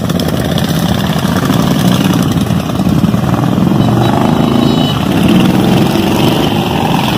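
Several cruiser motorcycles' engines running loudly together as the group pulls away one after another, a dense, continuous rumble.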